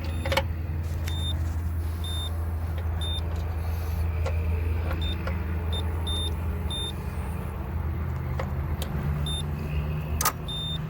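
Short, high electronic beeps from a multimeter, repeated a dozen or so times as it is used to probe the rooftop unit's wiring for voltage, over a steady low machinery hum, with a sharp click right at the start and another near the end.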